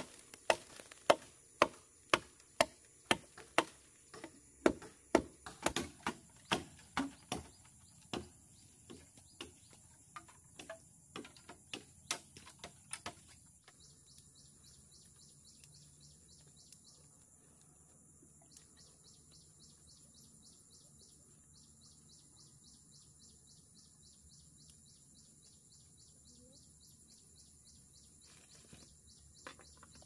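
Repeated chopping strikes on bamboo, about two a second for roughly the first thirteen seconds, then they stop. Afterwards insects trill steadily in a high, fast pulsing drone.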